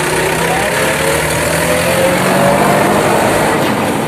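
Mahindra tractor's diesel engine running loudly, heard from on board, with a faint whine rising slowly in pitch.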